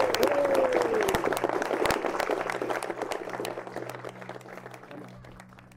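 Wedding guests applauding, many hands clapping, with a brief whoop near the start; the applause fades away steadily over the seconds.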